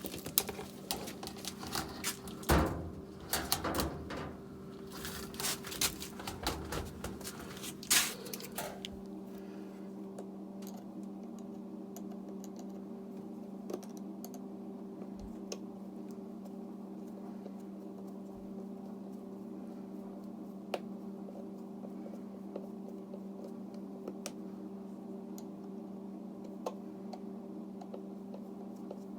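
Knocks, clicks and clatter from hands working the dryer's flexible vent duct and its clamps for about the first nine seconds, then only a few faint clicks, over a steady low hum.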